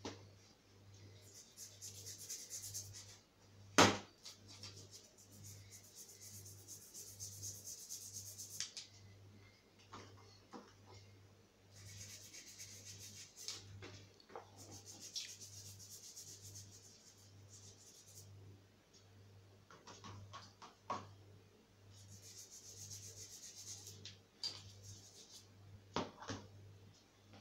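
Scrubbing and rubbing at a small iron object soaked in a Coca-Cola cleaning mixture: scratchy hiss in stretches of a few seconds, with pauses between. A sharp knock about four seconds in.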